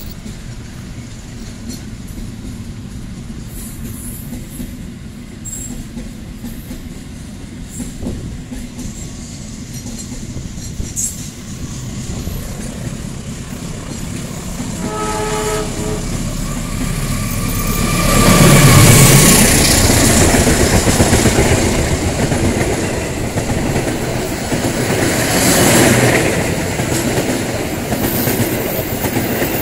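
Container wagons of a freight train rolling past with a steady rumble. About half-way, a CC201 diesel-electric locomotive sounds a short horn blast, then passes close. It is the loudest moment, and its passenger coaches follow, clattering over the rail joints.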